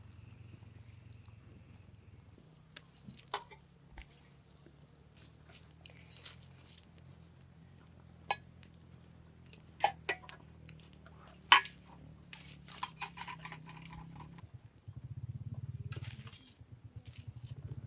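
Scattered sharp clinks and knocks of cooking pots, dishes and utensils being handled, the loudest about two-thirds of the way through, over a steady low hum. A louder rough low sound comes in near the end.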